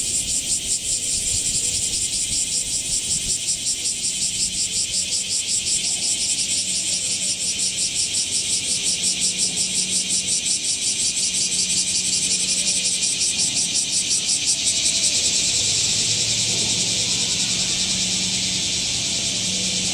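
A loud chorus of cicadas: a dense, high-pitched buzz pulsing several times a second without a break. A faint low hum sits underneath and grows slightly about three-quarters of the way through.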